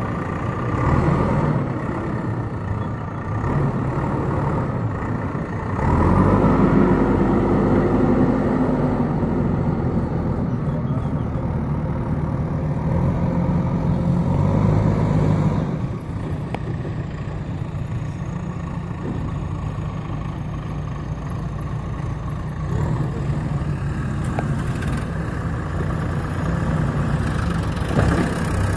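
Diesel engines of a JCB 3DX backhoe loader and a farm tractor running. The sound is a steady low drone that grows louder from about six seconds in and eases off again at about sixteen seconds.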